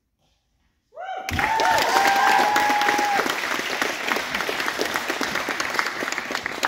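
A small group of gymnasts clapping and cheering, starting suddenly about a second in. High, held cheering shouts ride over the clapping for the first couple of seconds, then the clapping carries on alone.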